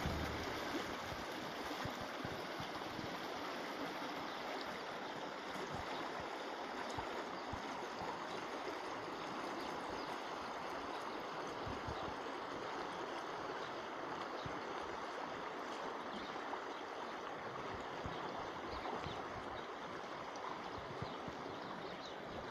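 Shallow village stream running steadily through a stone-walled channel, a continuous rushing of water over small riffles.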